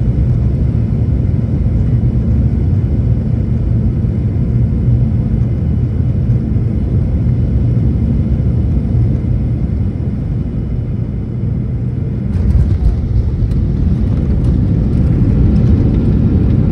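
Boeing 737 MAX cabin noise as the airliner touches down and rolls out on the runway: a loud, steady rumble of its CFM LEAP-1B engines and the wheels on the runway. About twelve seconds in, the noise grows louder and harsher.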